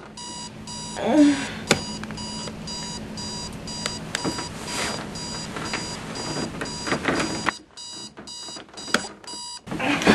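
Digital alarm clock beeping, a high repeating beep about twice a second, with bedding rustling as someone stirs under it. The beeping stops near the end and a louder rustle of blankets follows.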